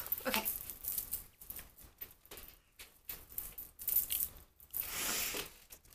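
Close rustling and scattered light clicks from hands moving against clothing and a chunky metal chain necklace, with a longer rustle about five seconds in.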